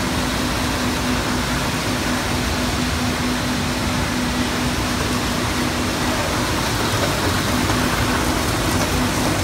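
Muller Martini Corona C18 perfect-binding line running: a steady mechanical hiss and rumble with a constant low hum.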